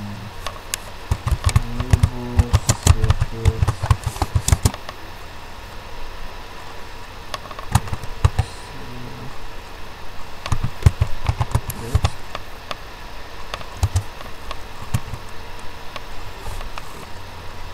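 Typing on a computer keyboard: bursts of quick key clicks, densest from about one to five seconds in, with shorter runs around eight, eleven and fourteen seconds, over a low steady hum.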